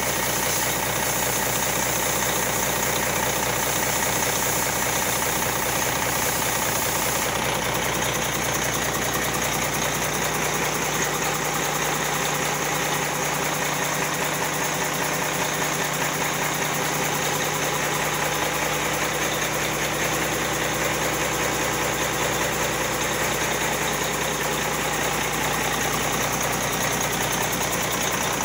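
1998 Cummins ISM inline-six diesel engine idling on a test run, a steady diesel clatter. A low steady hum joins about ten seconds in.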